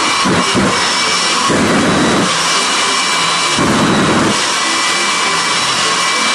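Jet engine of a jet-powered school bus dragster running on the start line: a steady turbine whine over a loud roar, swelling into deeper rumbling surges about every two seconds as the afterburner flares.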